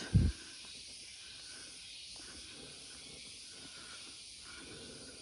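Steady high hiss of cicadas and other forest insects, with a brief low thump right at the start.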